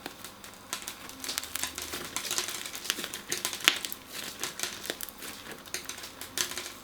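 Crunchy slime being squeezed and worked by hand: dense, irregular crackling and snapping, with one sharper snap about three and a half seconds in.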